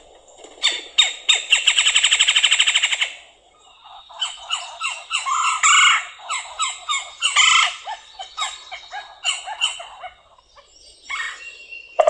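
Red-bellied woodpecker calls: a fast rattle lasting about two seconds, followed by a run of short, sharp calls.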